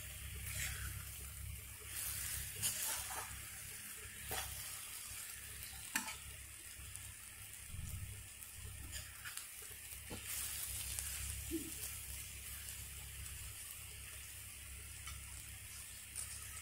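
Cooked bitter gourd and well-roasted masala sizzling gently in oil in a kadhai as a metal spatula stirs and scrapes it. Short clicks of the spatula against the pan come every second or two, over a steady frying hiss. The dish is at its finished stage.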